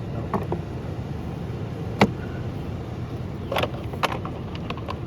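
Sharp clicks and knocks from the truck's door handle and trim parts being handled and fitted, about five in all, the loudest about two seconds in, over a steady low hum.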